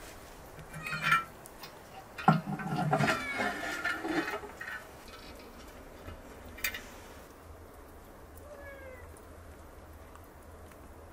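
An animal calling: a short pitched cry, then a louder, longer wavering one about a second later, followed by a single sharp knock and a faint rising chirp near the end.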